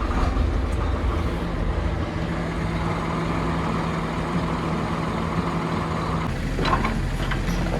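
Excavator engine running steadily as it warms up. About six seconds in its note changes, and a few short clanks follow.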